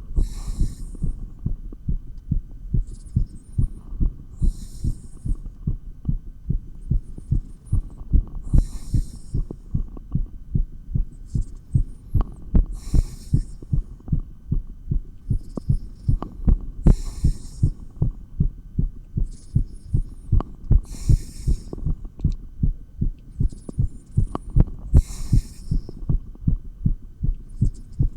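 A human heartbeat heard through a stethoscope chestpiece, beating fast and regularly, raised by exercise with dumbbells. A hissing rustle comes in roughly every four seconds over the beats.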